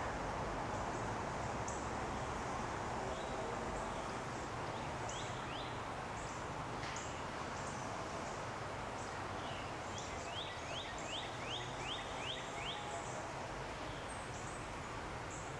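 Small birds calling over a steady outdoor background hiss. Short high chips come throughout, and about two-thirds of the way in there is a quick run of about eight rising notes at roughly four a second.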